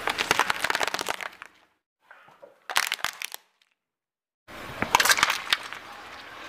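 A car tyre rolling over and crushing objects, heard in three short separate takes. First a run of crackling snaps lasting about a second and a half, then a brief burst of cracking in the middle. Then a loud crunch about halfway through, followed by a steady rustling crackle.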